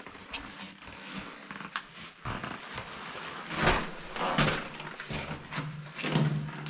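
Footsteps scuffing and crunching over gravel and debris on a concrete bunker floor, in a small hard-walled room. A low steady hum comes in near the end.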